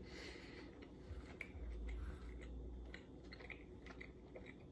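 Faint chewing of a mouthful of pizza with the mouth closed: soft, irregular little clicks, with a low rumble for about a second and a half near the middle.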